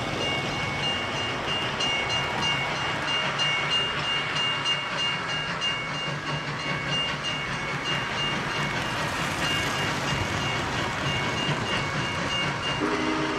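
O gauge model trains running on three-rail track: wheels rattle and click steadily over the rails, with a high thin whine that comes and goes. A lower chord-like tone starts near the end.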